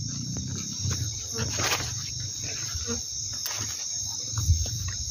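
Steady, high-pitched chorus of night insects, with rustling of tall grass and low bumps as someone pushes through the vegetation on foot.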